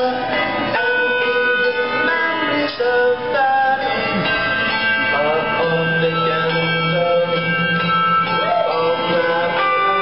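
Handbells played live as a tune, notes struck one after another and overlapping as each bell rings on.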